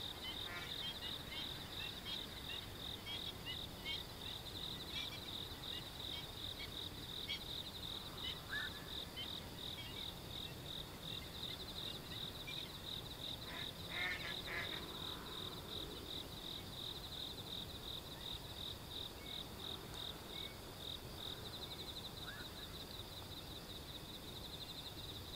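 A steady, fast-pulsing trill of night insects keeps up throughout. Over it come a few short waterbird calls, one of them louder a little past the middle, from the black-winged stilts and black-crowned night herons calling at the water's edge before dawn.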